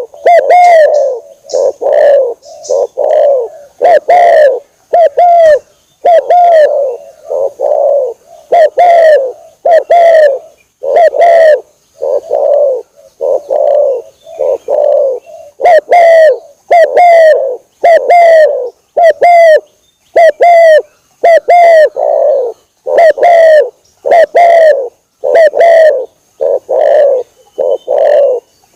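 Spotted dove (tekukur) cooing over and over, a steady run of short, similar coos, a little over one a second.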